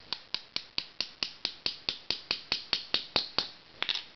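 Quick, even light hammer taps on a steel pin punch, about four to five a second, driving a bronze insert back into a CDV-700 radiation probe's socket base, with two more taps near the end.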